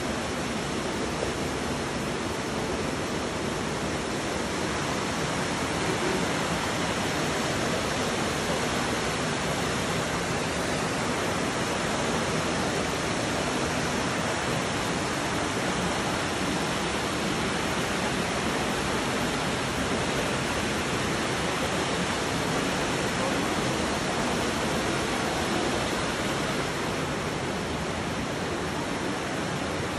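Steady rushing of floodwater filling a street, an even noise with no let-up.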